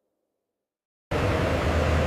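Silence for about a second, then a vehicle engine's steady running noise with a low hum cuts in suddenly.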